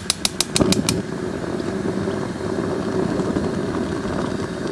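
A gas grill's igniter clicking rapidly, about eight sharp clicks in the first second, as the propane burners are lit, followed by the steady low rush of the burning gas.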